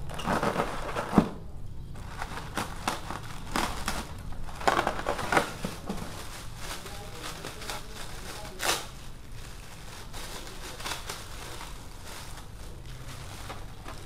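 Plastic packaging rustling and crinkling as bagged drone parts are lifted out of their box and handled, with scattered clicks and knocks; sharp knocks about a second in and near the ninth second are the loudest.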